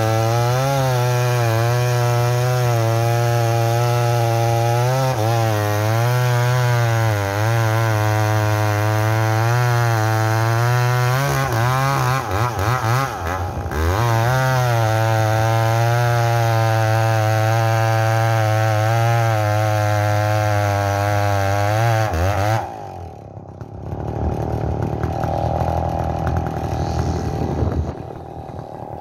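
McCulloch Mac 850 two-stroke chainsaw cutting through a bluegum log at full throttle, its pitch rising and falling under the load, with a short dip about twelve seconds in. About twenty-two seconds in it drops back to a quieter idle.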